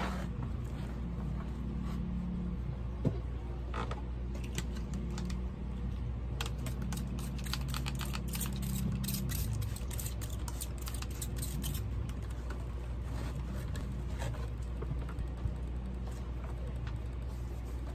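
Cleaning a shelf by hand: a cloth wiping, a sharp knock about three seconds in, then a run of quick squirts from a plastic trigger spray bottle in the middle, over a steady low hum.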